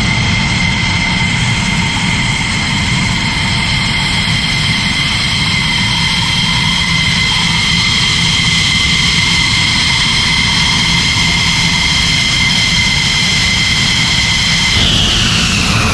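F-16 Fighting Falcon jet engine running steadily, a high whine over a low rumble. Near the end the whine slides down in pitch.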